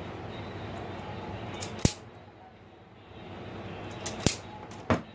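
Four sharp clicks of a cutting tool snipping wire, one about two seconds in and three close together near the end, over a steady low hum: old speaker wire being cut during rewiring.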